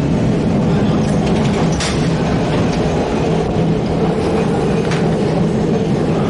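Milan-built Peter Witt streetcar heard from inside the car as it runs along the track: a steady rumble and rattle of the car body and wheels on the rails, with a low hum and a few faint clicks.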